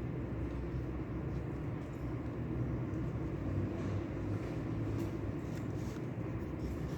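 Steady low rumbling background noise with a few faint, scattered small clicks.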